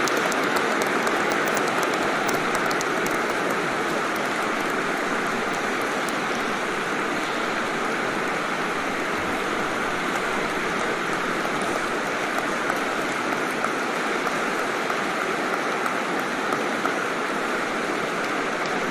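Crowd applause: many people clapping at once in a dense, steady wash, easing slightly over the first few seconds.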